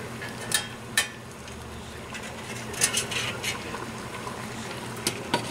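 Several light metallic clinks and knocks as a skinned squirrel is set on a stainless steel steamer rack, over a steady background of the pot steaming on the stove.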